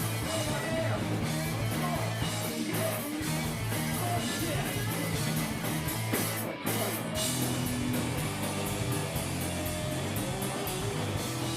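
Live rock band playing: electric guitar and bass over drums with regular cymbal strikes. The cymbals break off briefly about six and a half seconds in, then the song carries on.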